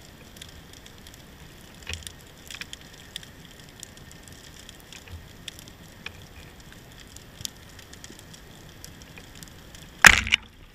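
Faint underwater ambience full of scattered tiny clicks and crackles, then near the end one loud sharp crack as a band-powered speargun fires underwater.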